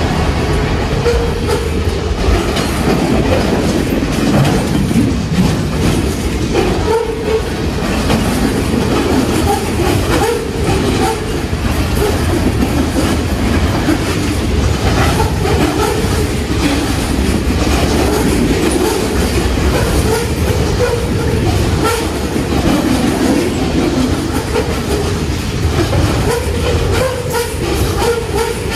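Canadian National freight train cars rolling past at speed, a steady loud rumble with steel wheels clicking and clattering over the rails throughout.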